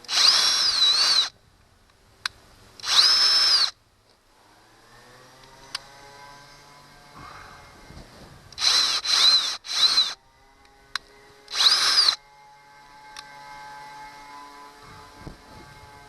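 Power drill boring a pilot hole through a fiberglass boat hull with a larger bit, run in six short bursts of high whine separated by pauses: two longer runs near the start, then a quick cluster of three and one last short burst.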